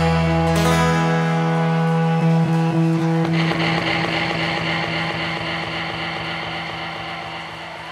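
A live rock band's final chord of guitars and keyboards, held and ringing out while slowly fading, with the bass dropping away about a second in. About three seconds in a rushing wash of noise joins the fading chord.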